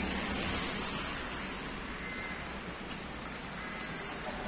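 Steady hiss of rain falling on a wet street.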